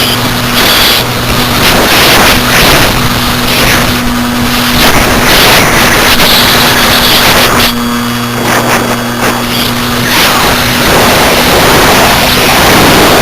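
Electric motor and propeller of a Parkzone T-28 Trojan model plane humming steadily, heard from a camera on its wing under a loud, surging rush of air over the microphone. The motor tone drops away briefly a few times as the throttle changes during the manoeuvres.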